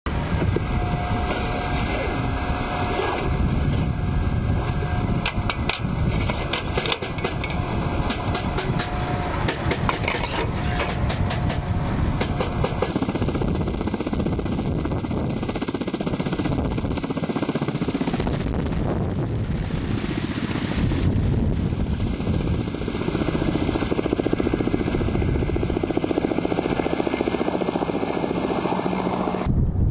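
Ka-52 attack helicopter turbines and rotors running, a steady, loud noise, with rapid irregular clicking through its first half.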